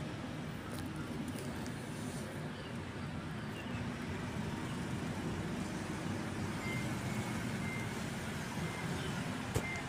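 Steady low rumble of road traffic, with a single sharp click near the end.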